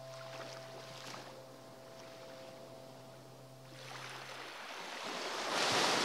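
Sea waves washing ashore, swelling into a louder rush near the end. Held notes of soft background music fade out about four seconds in.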